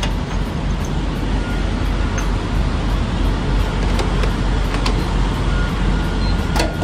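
Steady low rumble of idling diesel engines, with a few light clicks and knocks as a diesel pump nozzle is handled and set into a trailer reefer unit's fuel tank. A faint steady whine comes in near the end.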